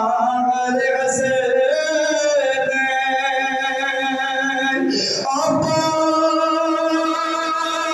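Man singing a noha, a Shia mourning lament, into a microphone, holding long drawn-out notes and shifting to a new note about five seconds in.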